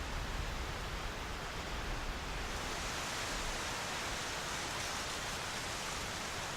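Wind hissing steadily through the trees, with low wind rumble on the microphone in the first two seconds or so.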